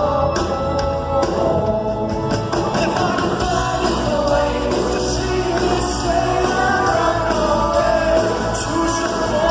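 A live band playing a song with a male lead vocalist singing over it, heard in a large concert hall.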